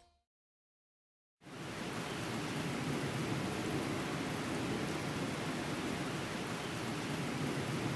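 Steady rain, setting in abruptly after about a second and a half of silence.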